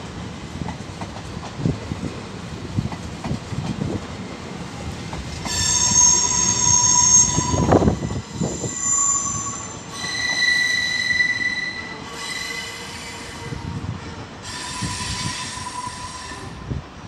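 Steel wheels of a Trenitalia Pop (ETR 104) electric regional train squealing in several shrill tones as it runs through the station's curves and points. The squeal comes in waves from about five seconds in until near the end, over a low rumble and knocks from the wheels on the track.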